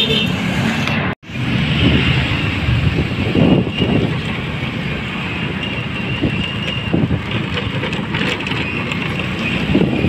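Motorcycle riding along a street, heard from the rider's seat: steady engine and road noise. The sound cuts out for an instant about a second in.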